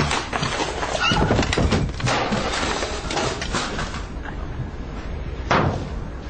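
A tall stack of paper envelopes toppling and spilling across a desk: a burst of papery thumps and rustling over about four seconds, then a single sharp knock near the end, over a steady low office hum.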